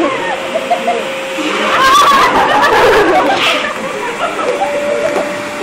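Shop vacuum running with a steady whine, drawing the air out of a trash bag sealed around a person; the whine steps up a little in pitch about four and a half seconds in. Giggling and chatter over it.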